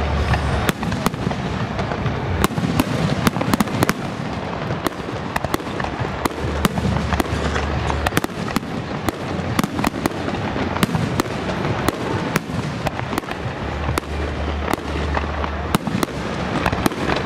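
Fireworks display: a dense run of sharp bangs and crackles, with deeper booms every few seconds.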